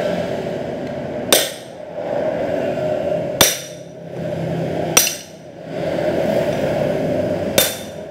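Four sharp metal-on-metal strikes about two seconds apart, each ringing briefly. A steel rod is being hammered against the nut beside the clutch of a Yamaha F1ZR two-stroke engine to loosen it. A steady hum runs underneath.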